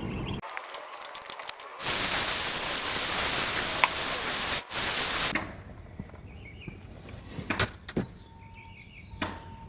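Cordless EGO electric lawn mower running, an even rushing whoosh of blade and air that comes in about two seconds in and drops away after about three and a half seconds, leaving quieter clicks and knocks.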